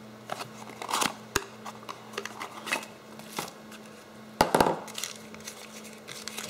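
Plastic wrapping crinkling and rustling as a small part is unwrapped and handled, with a few sharp clicks and knocks. The loudest is a quick double knock about four and a half seconds in. A steady low hum runs underneath.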